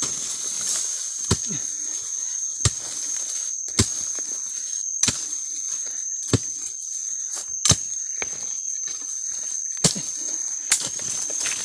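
Wooden-handled digging tool chopping into dry soil and leaf litter, about eight sharp blows roughly one and a quarter seconds apart, digging out a six-banded armadillo that has gone down its burrow. A steady high-pitched whine runs underneath.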